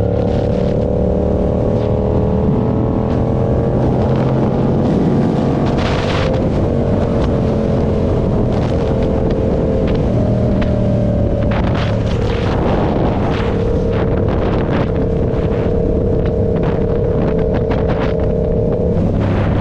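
Motorcycle engine running under way, its pitch climbing over the first few seconds, then dropping and stepping several times as the revs change before holding steady near the end. Wind buffets the microphone throughout.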